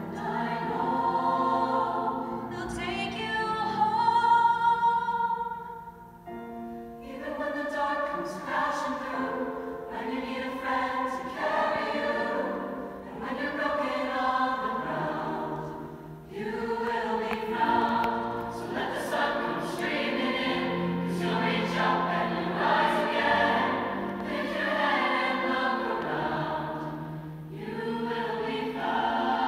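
Large mixed choir singing a slow song in many-part harmony, with brief dips in volume about six and sixteen seconds in before the full choir comes back in.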